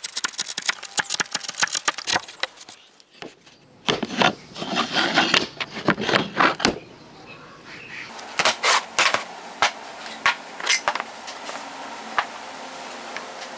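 A hand chisel clicking and scraping as it pares the waste from a dovetail socket in a wooden board. Then wooden boards knocking and rubbing as dovetail joints are slid together, with a few sharp wooden knocks near the end.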